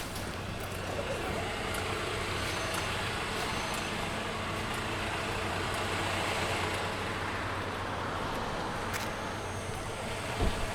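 Mercedes-Benz Citaro C2 G articulated bus heard from on board: the engine and the loud cabin heater running steadily, with a short thump near the end.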